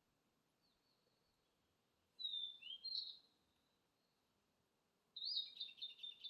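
Wild mountain songbirds singing: two short phrases of high whistled notes with sliding pitch, one about two seconds in and another starting about five seconds in.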